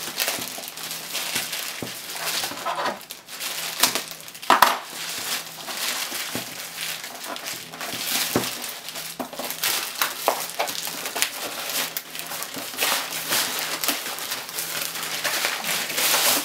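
Plastic poly mailer bag crinkling and crackling as hands handle it, rip it open and pull a cardboard box out of it, with irregular sharp crackles throughout.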